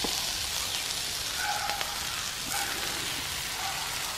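Giant freshwater prawn and vegetables sizzling steadily on a hot flat iron griddle over a wood fire, with a few faint clicks.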